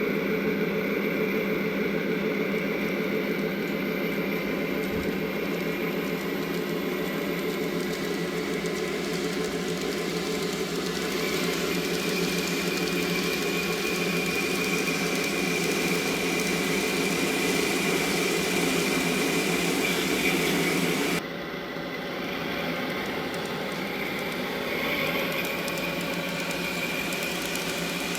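Recorded DD51 diesel-locomotive engine sound played by a TOMIX Sound Box through a small speaker, running steadily. About 21 seconds in it changes suddenly to a quieter, different engine note.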